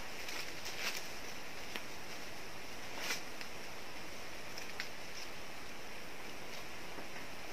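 Steady forest background hiss with a few light, scattered clicks and snaps, the sharpest about three seconds in.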